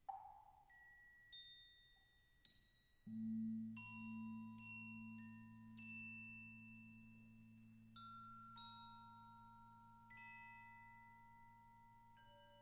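Crotales struck one at a time with mallets, each high bell-like note ringing on and overlapping the next. About three seconds in, a Javanese gong is struck, and its deep, slowly pulsing hum sustains beneath the crotales.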